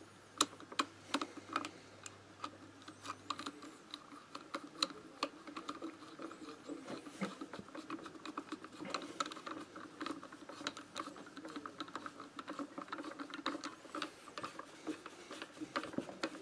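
Light, irregular metallic clicking and knocking, several a second, from the clutch of a Minarelli AM6 engine being worked by hand. The worn clutch bell rattles from excessive play, a sign that the bell is too damaged and needs replacing.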